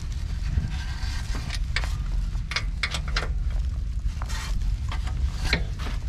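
Steady patter of rain with wind rumbling on the microphone. A few irregular sharp clicks and knocks come from tools working the bottom bolt of the front shock absorber.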